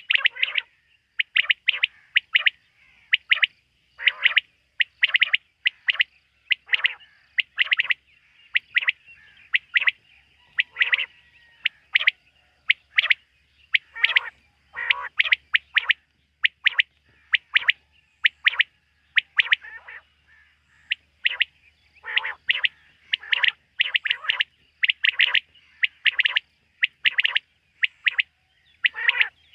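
Quail calling repeatedly at night: short, sharp, high-pitched notes come in quick clusters of two to four, separated by brief pauses.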